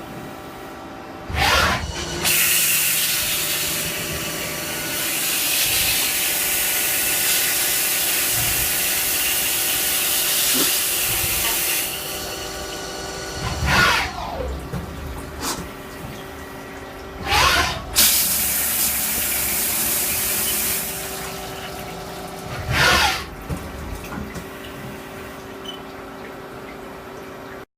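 Haas ST-10T CNC lathe running, with a steady machine hum and long stretches of rushing hiss that sounds like coolant flowing. Four short, sharp sweeping sounds come through, about 1.5, 14, 17.5 and 23 seconds in.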